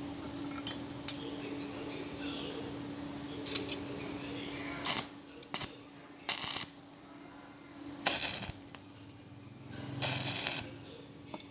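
Light metallic clinks and a few short hissing, scraping bursts over a steady low hum.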